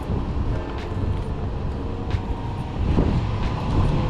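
Road traffic: a motor vehicle running close by, a steady low rumble that grows louder about three seconds in.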